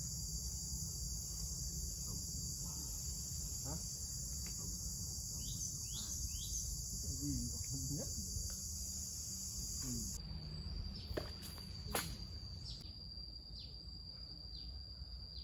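Steady high-pitched insect chorus that cuts off abruptly about two-thirds of the way through, leaving a thinner, fainter tone. A few short falling chirps come through now and then over a low outdoor rumble.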